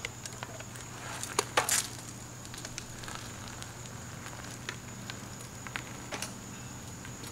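Outdoor ambience: a steady high insect drone with scattered irregular clicks and crackles, a few louder ones about a second and a half in.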